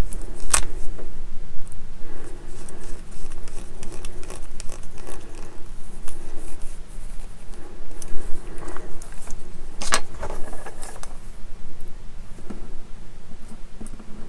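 Small hand screwdriver driving tiny screws into plastic model-kit parts, with scattered light clicks and taps from handling the parts and tools. Two sharper knocks, one just after the start and one about ten seconds in.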